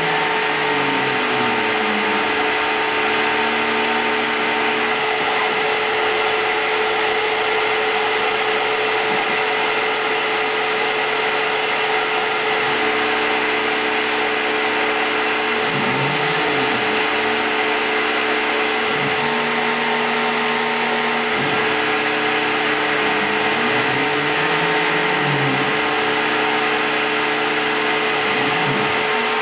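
Tormach CNC mill cutting: the spindle runs with a steady whine while the axis stepper motors whine in short sweeps, rising and falling in pitch as the table speeds up, slows and changes direction, with held notes during constant-speed moves.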